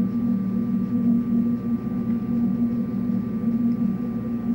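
Steady low hum with a faint, thin high tone above it: background hum of an old cassette recording of a lecture hall during a pause in speech.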